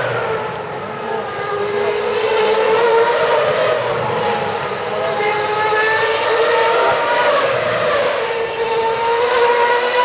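2010 Formula 1 cars' 2.4-litre V8 engines screaming at high revs as cars pass one after another, the pitch rising and falling as they lift off and accelerate through the corner.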